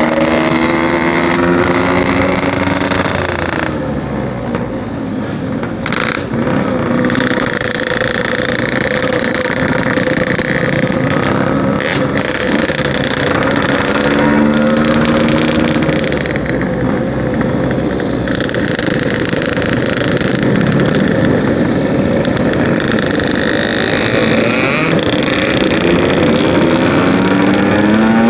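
Yamaha RX-King 135cc two-stroke single-cylinder engine running through a 'packing power' aftermarket exhaust while riding, its pitch climbing under acceleration a few times and falling back between.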